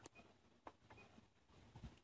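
Near silence, with a few faint clicks and a soft low bump near the end.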